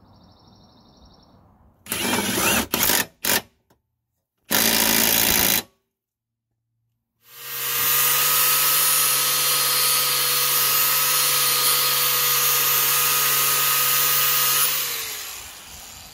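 Angle grinder grinding the cutting edge of a steel mower blade to sharpen it. Several short loud bursts come first, then a steady run of about seven seconds with a constant whine, ending as the grinder is switched off and spins down.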